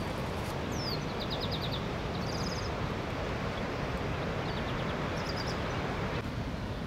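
Outdoor ambience: songbirds giving several short high trills and a quick downward chirp over a steady background hiss.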